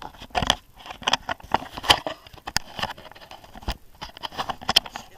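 Camera handling noise: irregular crackling, scraping and small knocks as the camera rubs against a jacket while it is being turned around.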